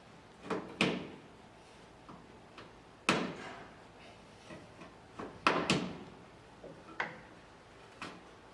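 Irregular sharp knocks and clanks on steel car bodywork, about seven in all, each with a short ring, with the loudest around three and five and a half seconds in.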